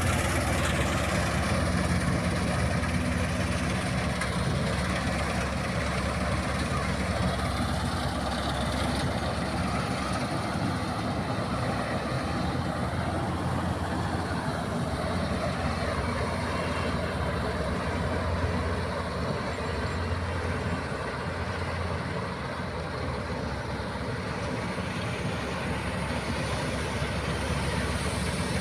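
Combine harvester running steadily as it cuts and threshes wheat: a low engine hum with a dense mechanical noise over it, easing a little about three-quarters of the way through and building again near the end.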